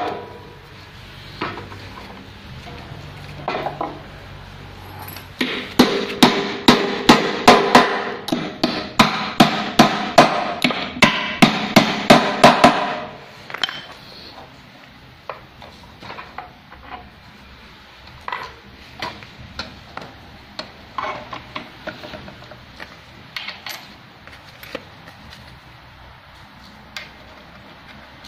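Hammer blows on the sewing table's mounting studs: a run of about twenty sharp, ringing strikes, roughly three a second, starting about five seconds in and stopping about halfway. After that only scattered light clicks and knocks of parts being handled.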